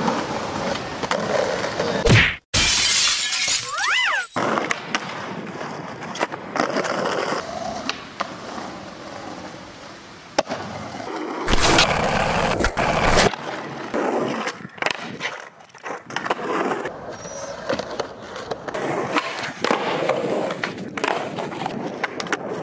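Skateboard sounds across several short street clips: wheels rolling on concrete and asphalt, with board pops, clacks and landings, and sharp cuts between clips. About halfway through comes a loud, rough rolling noise lasting about two seconds, as the wheels ride up a brick wall.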